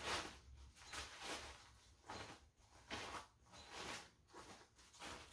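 Faint rustling and scuffing of a Gregory Zulu 30 daypack's fabric as an item is tucked into its inside pocket: a series of short rustles, about two a second.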